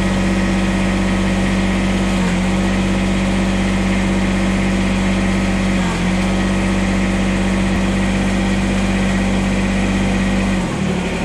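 Kubota BX compact tractor's three-cylinder diesel engine running steadily at idle, with the note dipping briefly a couple of times, while the new rear remote's hydraulic top link is tried out. The engine note changes just before the end.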